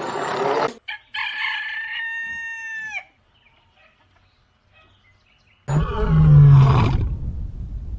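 A rooster crowing once: a long held call that drops in pitch at the end. After about two seconds of silence, a loud, deep animal roar starts.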